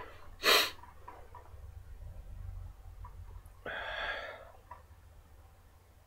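A person sniffing a glass of red ale to take in its aroma: one short, sharp sniff about half a second in, then a longer sniff near the middle.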